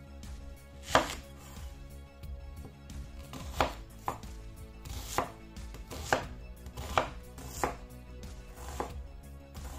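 Chef's knife cutting a peeled onion on a bamboo cutting board: about eight sharp knife strikes against the board, spaced irregularly.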